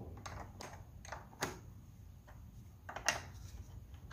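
Faint, irregular metal clicks of a 10 mm wrench working the nut on a car battery's negative terminal clamp, tightening the cable onto the post. The clearest clicks come about one and a half and three seconds in.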